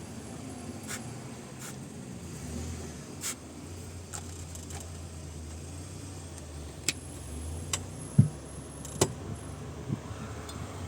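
Tormek water-cooled sharpening machine running with a steady low motor hum, and a few short clicks and knocks scattered through it, the sharpest about eight seconds in.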